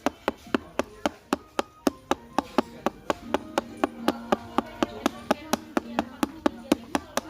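Steady, rapid tapping of something hard on wood, about four sharp knocks a second, in the manner of Minecraft's stone-mining sound effect.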